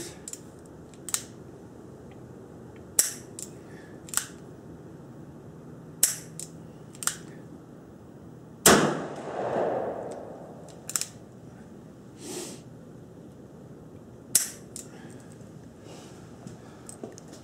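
Ruger Blackhawk single-action revolver firing one loud shot about nine seconds in, the report ringing on for over a second. Several quieter sharp cracks come before and after it.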